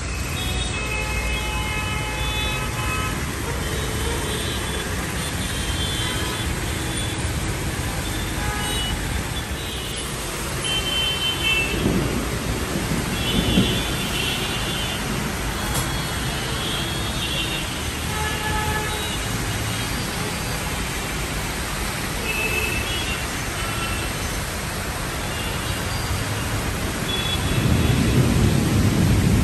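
Heavy rain falling over city road traffic: a steady hiss of rain and wet road noise, dotted with short car horn toots. Two louder low rumbles rise out of it, about halfway through and near the end.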